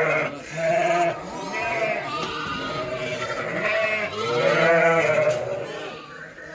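A penful of lambs and ewes bleating, many calls overlapping, some low and some higher-pitched.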